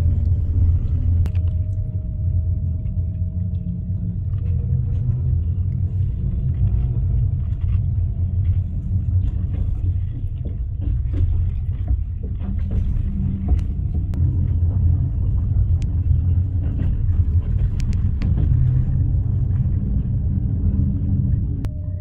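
Passenger train running along the track, heard from inside the compartment: a steady low rumble with scattered clicks and rattles.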